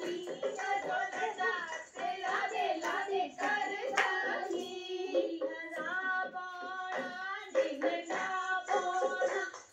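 Music: a song with a singing voice over a percussive beat.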